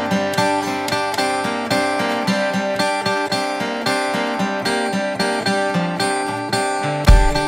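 Soundtrack music: a quick, even run of plucked notes. Deep, heavy bass beats come in near the end.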